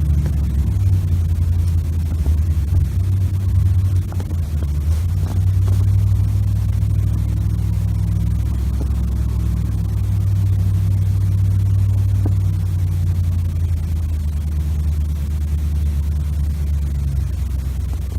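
A loud, steady low rumble, easing off near the end.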